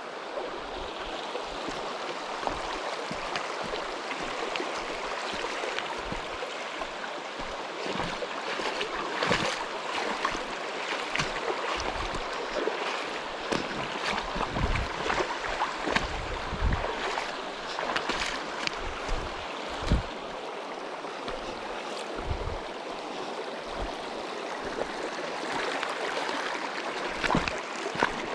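Mountain stream rushing steadily, with scattered short knocks and splashy thumps, frequent from about a third of the way in.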